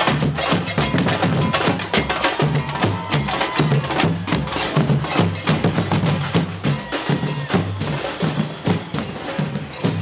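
Percussion-heavy music: rapid drum and wood-block hits over a low bass line that steps between notes.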